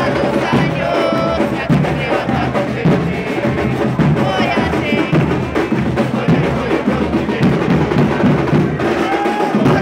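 Football supporters' drums beating a rhythm while a packed terrace crowd sings and shouts a chant over them, close by and loud.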